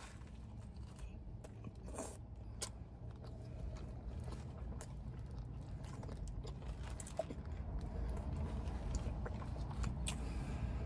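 Faint close-up sounds of a person biting into and chewing a fried chicken and glazed donut sandwich, with a few soft clicks in the first few seconds, over a low steady hum.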